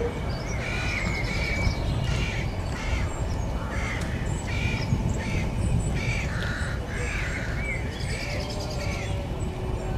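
Birds calling in a quick series of short, high, arched calls, about one or two a second, over a steady low rumble.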